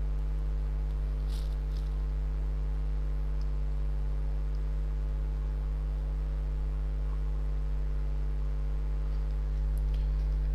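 Steady electrical mains hum with a faint hiss. There is a faint brief click about a second and a half in.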